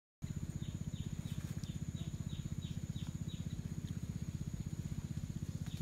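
Animal calls: a fast, steady low pulsing chorus with a constant high whine above it, and a run of short falling chirps over the first three seconds.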